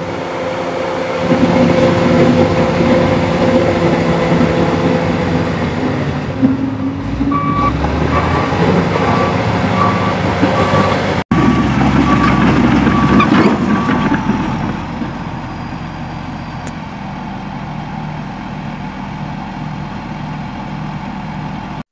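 Komatsu D85E bulldozer's diesel engine running, with a reversing alarm beeping at an even pace for several seconds midway as the dozer backs up. The engine runs steadier and a little quieter near the end.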